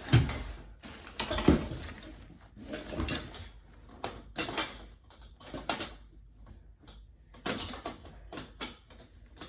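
Irregular knocks, clunks and rattles of a baby bassinet's frame parts, metal pieces among them, being handled and pushed together during assembly. The sharpest knocks come right at the start and about a second and a half in.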